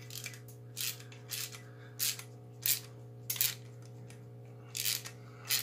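Sharp metal-on-metal clinks from the parts of a steel grappling hook being worked and tightened at its threaded end, about one a second or a little faster and irregular.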